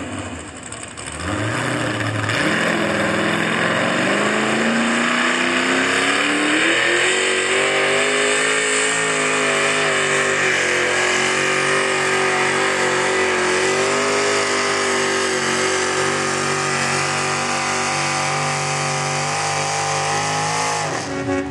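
Modified pulling tractor's engine revving up hard over the first few seconds, then held at high revs as it drags the weight-transfer sled down the track, cutting off suddenly near the end.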